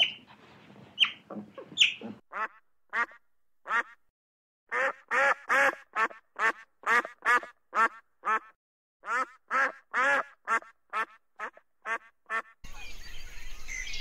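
An animal calling in a long run of short, evenly repeated calls, about two or three a second, after a few sharp sweeping calls at the start. Near the end it cuts to a steady background hiss.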